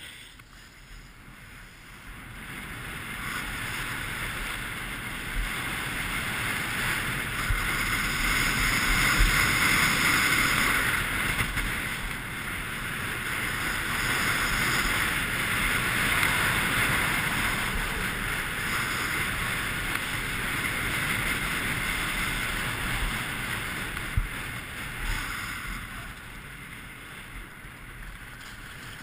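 Skis hissing and scraping over packed snow on a fast downhill run, mixed with wind rushing over the microphone. The sound builds over the first few seconds as speed picks up and eases near the end.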